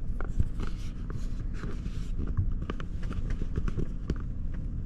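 Water spray pattering and tapping irregularly on the windshield and body of an SUV in an automatic car wash, heard from inside the cabin. A steady low rumble runs underneath, with a hiss of spray in the first couple of seconds.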